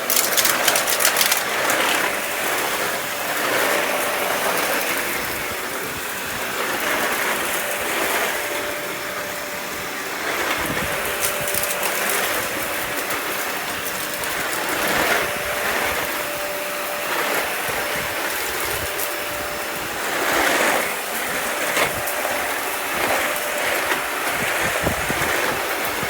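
Dyson Ball Animal 2 upright vacuum cleaner running steadily while sucking up sawdust, with swells of rushing air as it pulls in debris. Its motor is nearly burnt out.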